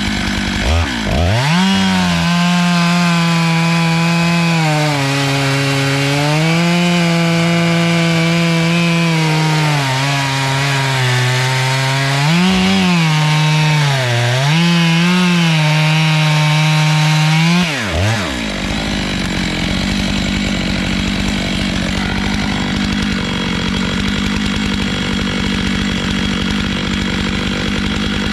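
Stihl MS 661 two-stroke chainsaw on a small chainsaw mill, running at full throttle through a cut in hardwood. Its engine note sags and recovers as the chain is loaded. About eighteen seconds in the pitch dips and comes back to a steady higher pitch as the saw runs freely.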